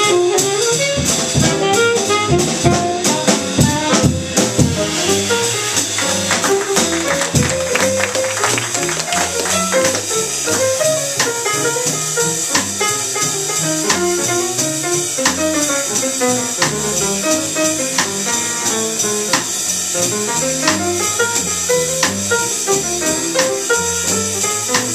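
Small jazz combo of alto saxophone, piano, upright bass and drum kit playing live, with dense drum and cymbal hits in the first few seconds, then a lighter texture of moving notes over steady cymbal ticks.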